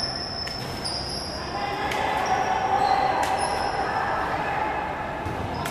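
Basketball game in a large echoing gym: sneakers squeak sharply on the hardwood court several times, with a few ball bounces and players' voices in the background.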